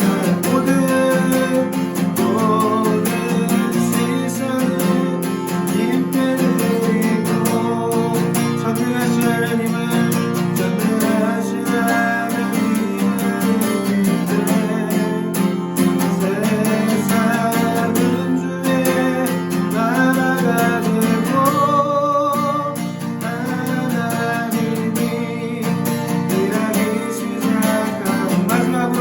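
Worship song with strummed acoustic guitar and a singing voice.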